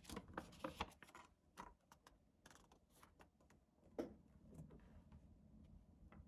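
Faint crackling and crinkling of a folded paper leaflet being unfolded by hand, a quick run of crackles at first, a few more, and one sharp snap of paper about four seconds in.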